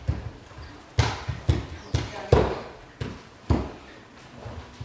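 Thuds on a stage floor from dancers moving with cardboard boxes, about five in irregular rhythm, each with a short echo in the hall.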